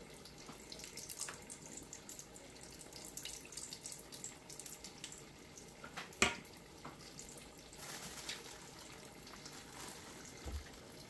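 Pastelitos frying in hot oil: a steady sizzle with scattered small crackles and pops, and one sharp knock about six seconds in.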